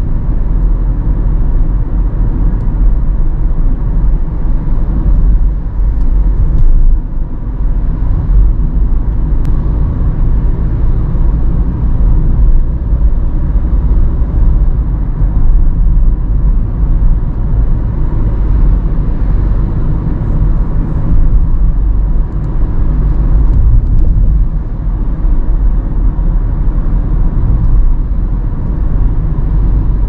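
Car driving along a road, heard from inside the cabin: a steady low rumble of engine and tyres.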